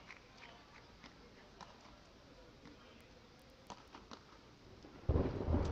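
Beach tennis rally heard faintly: a few sharp pops of paddles striking the ball, then a sudden loud rush of noise near the end.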